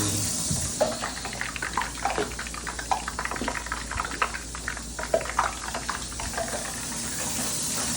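Running tap water stops shortly after the start, followed by scattered light clicks and knocks over a low steady hum.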